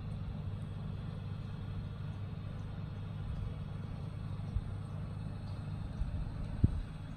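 A steady low background hum, with a few short, dull low thumps in the second half, the loudest shortly before the end.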